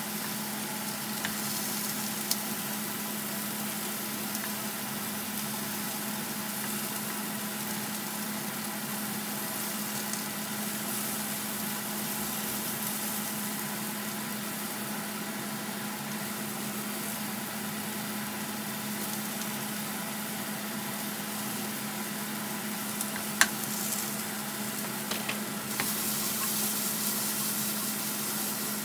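Onion, cherry tomatoes and garlic sizzling in an oiled frying pan over a steady low hum, with a few sharp clicks of tongs against the pan. The sizzle grows louder near the end as the pan is tossed.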